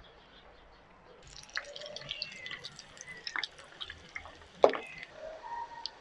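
Coated chicken drumsticks deep-frying in hot oil: a dense sizzle with many small crackles and pops, starting about a second in after a faint moment, with one sharper pop near the end.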